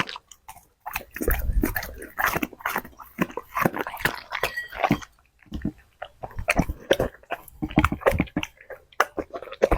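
Dog chewing and crunching food, with many quick, irregular bites and short pauses between mouthfuls.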